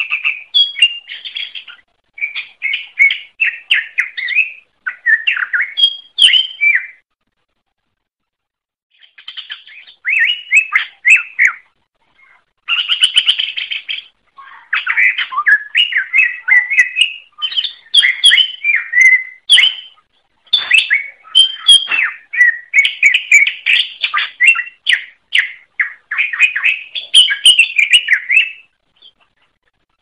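Cucak ijo (green leafbird) singing in loud, fast runs of varied whistled and chattering notes, phrase after phrase with short breaks, one pause of about two seconds near the start.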